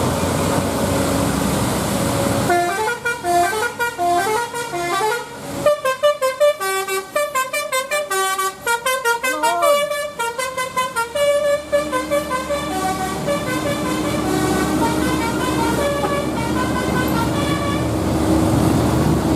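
A bus's Basuri telolet horn, a multi-trumpet melodic horn, playing a quick tune of short stepped notes over the running bus and traffic noise. The tune starts about two seconds in, is busiest in the middle and trails off near the end as the vehicle noise grows louder.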